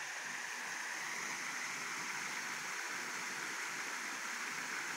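Water splashing steadily down a small rock waterfall into a backyard pond.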